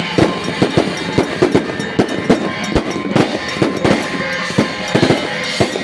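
Firecrackers popping in irregular quick cracks, several a second, over music.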